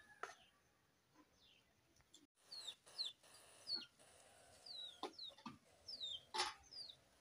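Chickens calling with repeated short, high chirps that fall in pitch, mixed with sharp clinks of a steel serving spoon against a steel bowl and plates; the loudest clink comes about six seconds in.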